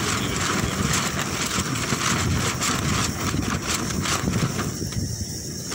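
Strong wind gusting over the microphone: a steady, rumbling rush that briefly eases near the end.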